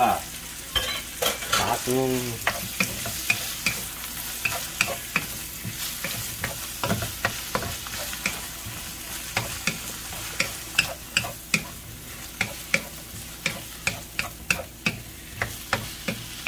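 Pieces of squirrel meat sizzling as they fry in a nonstick wok, with a wooden spatula stirring them and knocking against the pan in many quick, irregular clicks.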